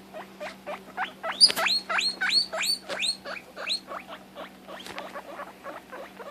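Guinea pig wheeking: a rapid run of short rising squeals, about four a second, louder and shriller from about a second in until near four seconds, then softer. It is the distress calling the owner describes when the guinea pig can't see her sister.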